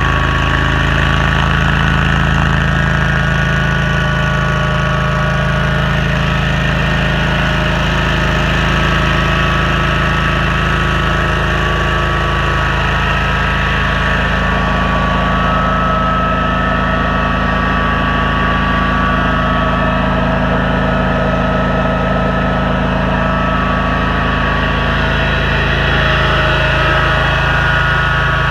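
Engine of a Toro STX-26 stump grinder running steadily, with no grinding strikes.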